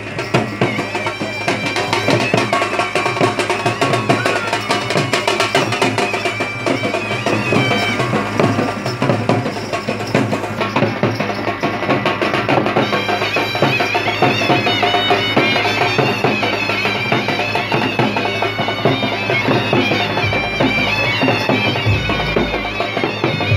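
Live traditional band music: barrel drums beating steadily while a reedy wind instrument plays a wavering melody over them.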